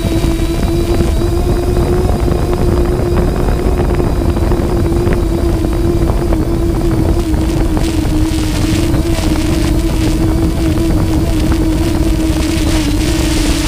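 Small aircraft's motors and propellers in flight: a steady pitched hum that holds one pitch, with wind rushing over the microphone.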